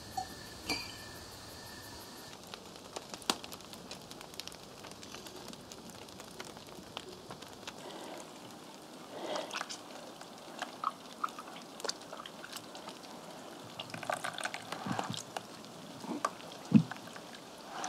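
Liquid dripping and splashing irregularly as fresh cheese is worked, with scattered clicks and knocks of the vessels being handled. A sharp knock near the end is the loudest sound.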